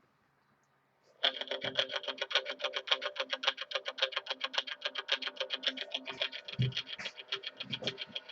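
Music with a fast, even pulsing beat over sustained tones starts suddenly about a second in, after near silence.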